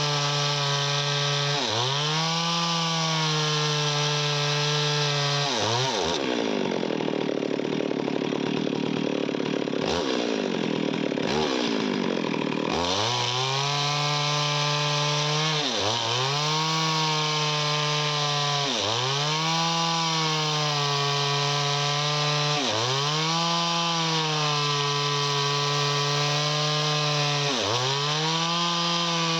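Chainsaw running at high speed through wood, its pitch dropping sharply and recovering every three to four seconds as it cuts. For several seconds starting about six seconds in, the sound turns into rising and falling sweeps before the regular pattern returns.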